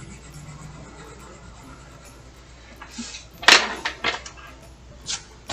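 Hand and colored pencil working on a sketchbook page: quiet background, then a loud burst of rustling and knocking strokes on the paper about three and a half seconds in, followed by two short clicks near the end.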